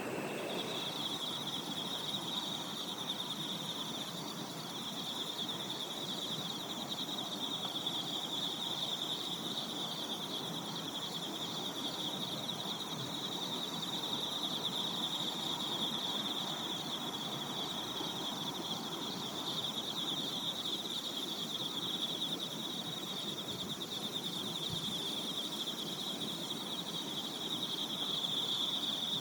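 Insects chirring in a continuous high trill with a fine, rapid pulse, over a faint low hiss.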